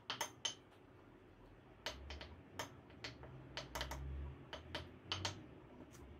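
A wooden spoon stirring an oily dressing in a small ceramic bowl, knocking against the bowl in faint, irregular clicks.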